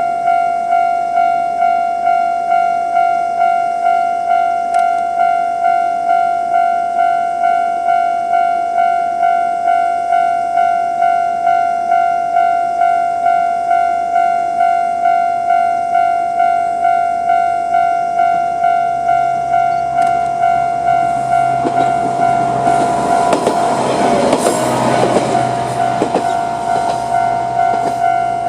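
Japanese railway level crossing's electronic warning bell ringing in a steady, evenly repeating ding, about three strikes every two seconds. From about 20 s a YR-880 diesel railcar passes over the crossing: its engine hum and the click of wheels over the rail joints swell to a peak about 24 s in and fade near the end, while the bell keeps ringing.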